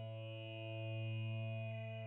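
Sustained buzzy electronic drone on one low note, rich in overtones, swelling and fading slowly about once every two seconds.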